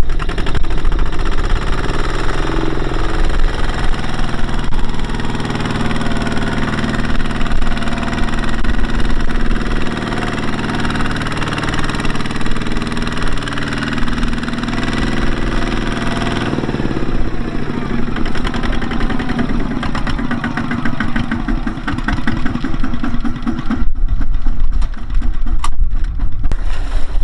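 Small diesel engine running steadily, its note changing about two-thirds through.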